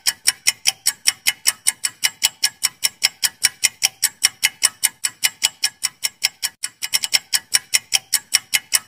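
Ticking clock sound effect for a countdown timer: sharp, evenly spaced ticks, about four a second.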